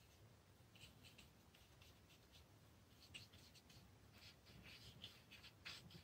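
Faint, short scratchy strokes of a paintbrush worked over wet watercolour paper, a few early and more of them in quick succession in the second half.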